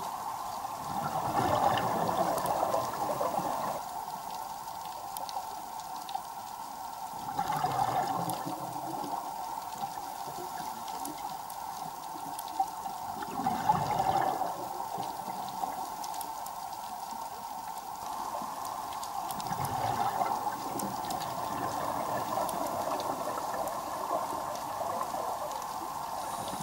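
Underwater breathing of a scuba diver through a regulator. A bubbly exhalation rumbles out four times, about every six seconds, over a steady hum.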